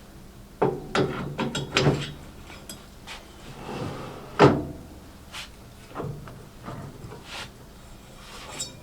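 A series of knocks and clunks from handling hard objects, likely the buffing-wheel mandrel being put away, with a cluster of quick knocks one to two seconds in and the loudest single knock about four and a half seconds in.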